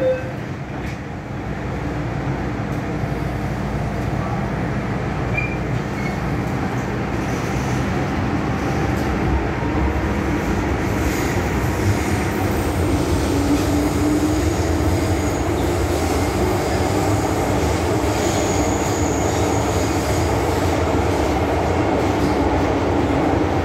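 MTR Island Line M-Train (Metro-Cammell electric multiple unit) pulling away and running between stations: a continuous rumble of wheels and running gear that grows louder over the first few seconds as the train picks up speed.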